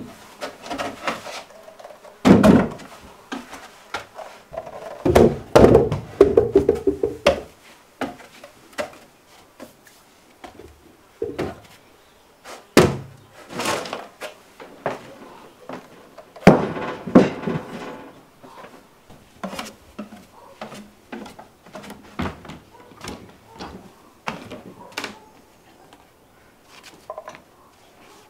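Irregular thuds and knocks of things being handled and set down, with a few louder clusters of clatter.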